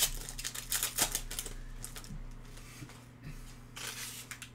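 Shiny foil trading-card pack wrapper crinkling and tearing as the pack is ripped open and the cards are slid out. The crackles come thick in the first second and a half, then once more briefly near the end.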